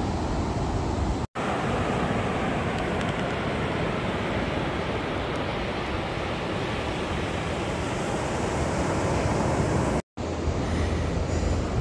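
Ocean surf washing steadily onto a sandy beach, with wind on the microphone. The sound cuts out for an instant twice, about a second in and near the end.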